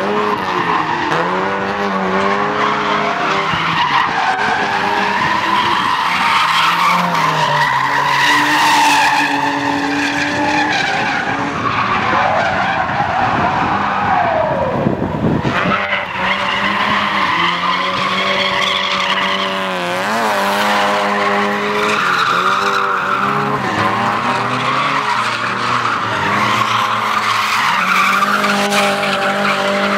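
Drift cars sliding around an oval track: engines revving up and down over long tyre screech. About halfway through, one engine note drops steeply as a car goes past.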